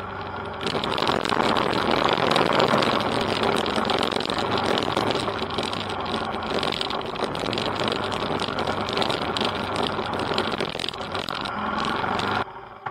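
Motorcycle engine running steadily while riding, under a heavy rush of wind and road noise on the on-board camera microphone. The sound cuts off suddenly near the end.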